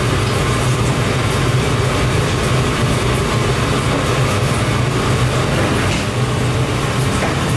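Steady low mechanical drone with a hiss over it: the constant machinery noise of a commercial kitchen.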